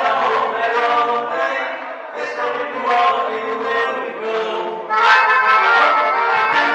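Live gaúcho dance band playing, a voice singing over accordion and band accompaniment. About five seconds in, the band comes in louder and fuller.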